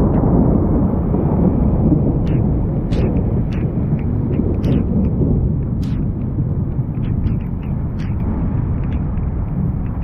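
Long rolling thunder rumble, loudest in the first couple of seconds and slowly easing, with scattered sharp ticks over it.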